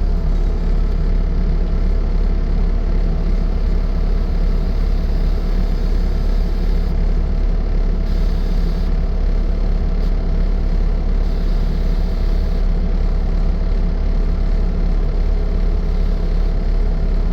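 2021 Bobcat T770 skid steer's four-cylinder diesel engine idling steadily.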